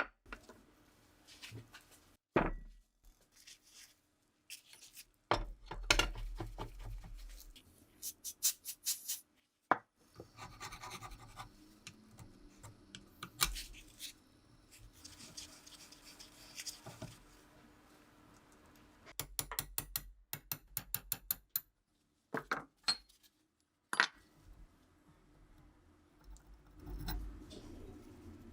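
Hand restoration work on rifle parts: scraping, scattered clicks and knocks of metal parts and tools, and two short runs of rapid ticking.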